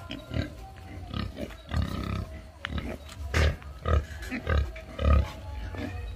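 A sow and her piglets grunting, with short separate grunts coming about one or two a second.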